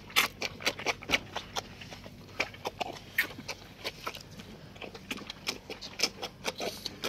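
Calf slurping and sucking milk from a shallow metal pan, short wet slurps coming about three a second in an uneven rhythm.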